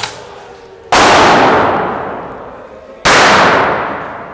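Two loud blasts about two seconds apart, each hitting suddenly and then dying away slowly, echoing through the building's bare rooms.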